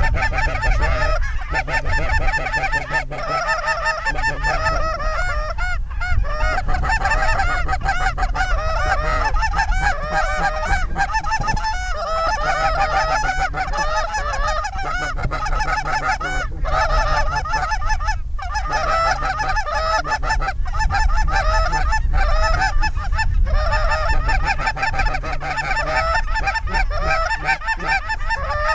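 Many geese honking together in a dense, unbroken chorus of overlapping calls, over a steady low rumble.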